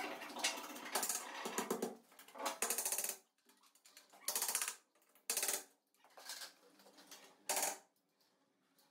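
Short bursts of rapid mechanical rattling, four of them after a busier opening stretch, from work on an aluminium sliding-door top track.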